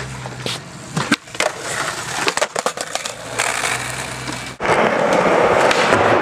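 Skateboard on concrete: wheels rolling, with several sharp clacks of board pops and landings in the first half. About halfway through the noise changes abruptly to a louder, steady rolling sound of wheels on a concrete floor.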